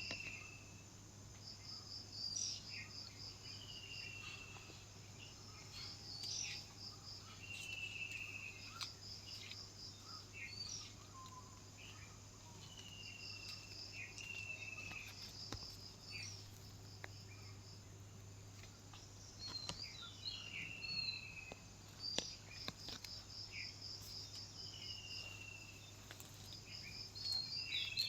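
Birds calling in the open: a clear falling whistle repeated every few seconds, short rapid trills higher up, and scattered chirps, over a faint steady low hum.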